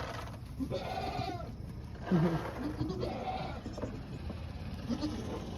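Goats bleating, several separate calls, the loudest a little after two seconds in.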